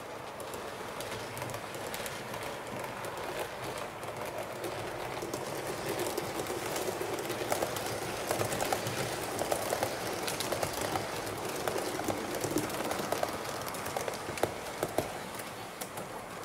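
Model push-pull train of silver-grey coaches and a red diesel locomotive rolling along the layout track: a steady rumble of wheels and motor that grows louder, with rapid irregular clicks over rail joints and points in the second half.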